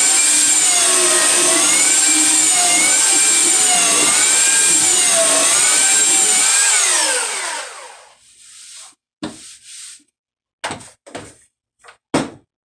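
Electric sander running at full speed, its pitch wavering as it is worked over wood. It is switched off about six and a half seconds in and winds down with a falling whine, followed by several short knocks as the tool and workpiece are handled.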